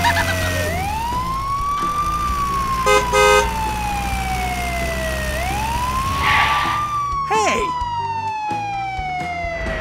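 Ambulance siren wailing: a slow falling tone that sweeps quickly back up, repeating about every four and a half seconds. A short run of beeps about three seconds in sits on top of it.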